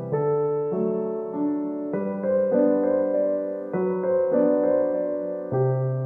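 Background piano music: a slow, gentle melody of sustained chords, with new notes struck about once or twice a second.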